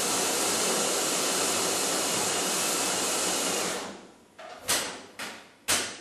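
Saeco automatic espresso machine's built-in coffee grinder running steadily, then stopping about four seconds in. A few short sharp knocks follow. The machine is resuming the requested coffee after its water tank was refilled.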